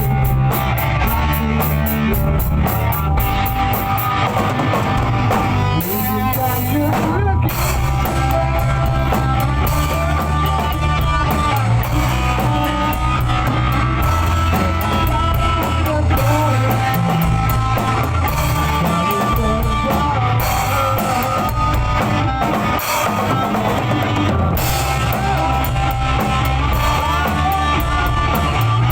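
Rock music with a drum kit and guitars playing at a steady, loud level throughout.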